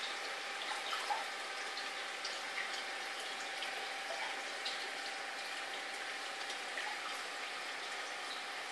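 Reef aquarium water circulating: a steady wash of trickling, bubbling water with small scattered drips and pops, over a thin steady hum.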